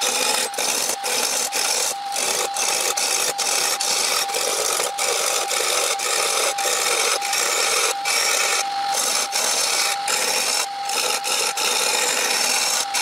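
A turning chisel cutting a spinning wood blank on a wood lathe: a continuous scraping hiss of steel peeling shavings, broken by brief lifts of the tool about twice a second, over a steady thin whine from the running lathe. The blank is being roughed down to a round cylinder.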